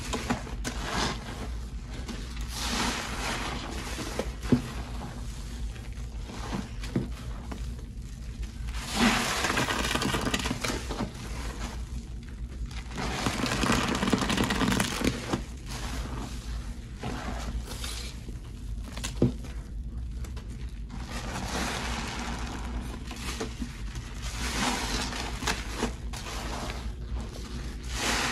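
A frothy mix of Pine-Sol, Lestoil and Murphy Oil Soap being worked by hand: wet, foamy sounds that swell and fade every second or few, with a few sharp knocks.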